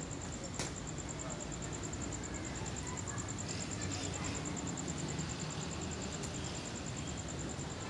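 A cricket chirping in a high, fast, even trill over a steady low background rumble, with one sharp click about half a second in.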